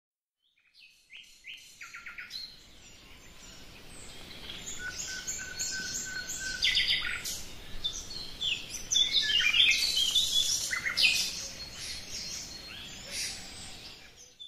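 Several birds chirping and singing together, many short, high calls and trills overlapping; the birdsong fades in about a second in and fades out near the end.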